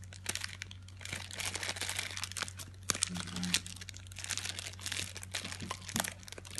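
Thin plastic bag crinkling and crackling in a steady run of small crackles as hands twist and squeeze it to push out coconut filling.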